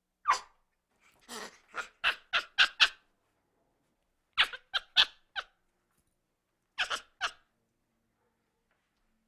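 Monkey giving short, sharp, high calls: one call, then a quick run of about six, a group of four or five, and three more near the end.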